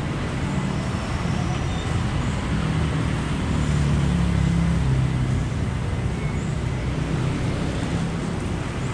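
Street traffic noise: a steady hum of vehicle engines and tyres, with one engine passing close and growing loudest about four seconds in before easing off.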